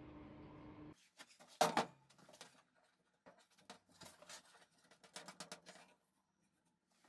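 Clicks, taps and scrapes of a rubber propane hose and its metal end being fitted by hand onto a brass gas inlet fitting, with one sharp clink about a second and a half in. A steady hum cuts off about a second in.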